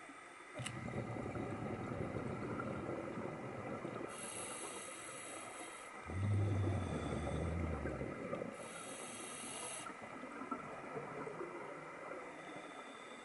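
Scuba diver breathing through a regulator underwater: hissing inhalations alternate with rumbling bursts of exhaled bubbles every few seconds, the loudest exhalation about six seconds in.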